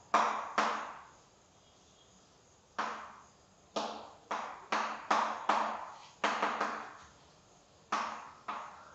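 Chalk tapping and striking against a blackboard as chemical structures are drawn: about a dozen sharp knocks in uneven groups, each fading briefly in a reverberant room, with a pause of nearly two seconds about a second in.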